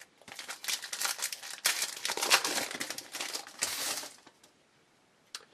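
Foil wrapper of a 2010 Contenders basketball card pack crinkling as it is handled and opened, dense crackling for about four seconds that then stops, followed by a single short click near the end.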